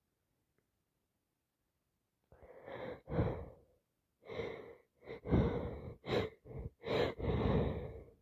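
A person with a heavy head cold breathing and sniffing through a congested nose: about two seconds in, a run of some eight short, breathy bursts begins, coming closer together toward the end.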